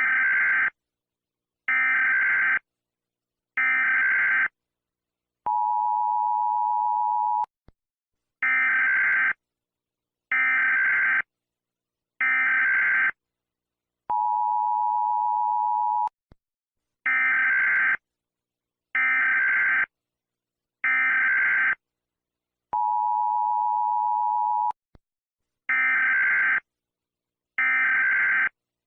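US Emergency Alert System tones: harsh digital SAME header data bursts, each about a second long, come in groups of three. Each group is followed by about two seconds of the steady two-tone EAS attention signal, and the cycle repeats several times.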